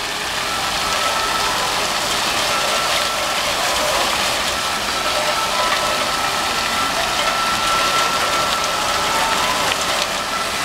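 Water from the Fire and Water Fountain splashing steadily, an even hiss of falling spray with a thin, steady high whine running through it.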